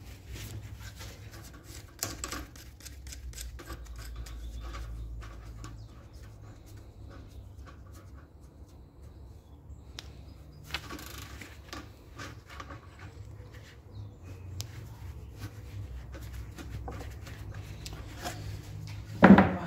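Scattered small metal clicks and taps of hand tools working loose a fitting on an air compressor, with one louder knock near the end.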